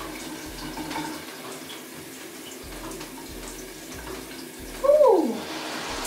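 Water running steadily from a newly installed rainfall shower head. About five seconds in comes a brief, loud squeal that falls in pitch.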